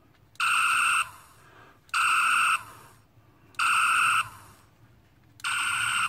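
Star Trek original-series phaser replica remote by the Wand Company playing its setting-six phaser effect through its small top speaker. There are four identical short electronic bursts, each about half a second long and steady in pitch and level, spaced about a second and a half apart.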